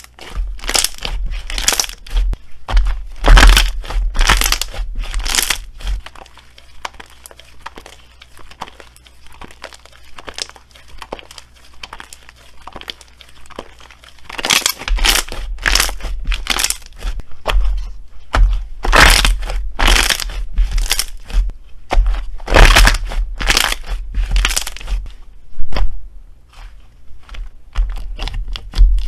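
White slime being squeezed, kneaded and stretched by hand, giving clusters of sharp clicks and pops as it folds and squishes. There is a quieter spell in the middle.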